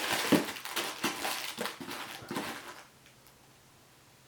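Crinkling and rustling of wire-harness loom material being handled, with small sharp crackles, stopping about three seconds in.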